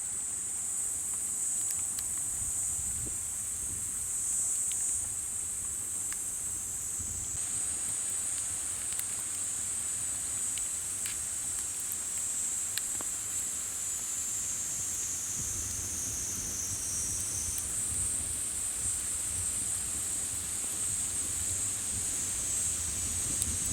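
Summer insect chorus, crickets and the like, trilling steadily and high without a break, with scattered faint pops and crackles from a wood campfire.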